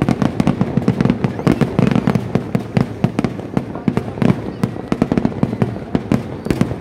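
Dense barrage of fireworks at a Kerala vedikkettu display: loud bangs and crackling cracks, many a second, with no let-up.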